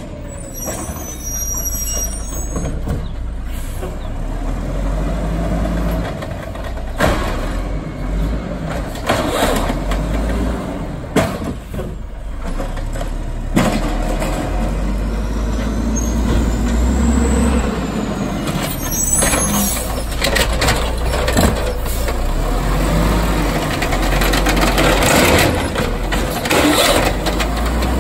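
Automated side-loader garbage truck's diesel engine running as it drives up the street and pulls in beside the carts, with several short, sharp air-brake hisses as it slows and stops.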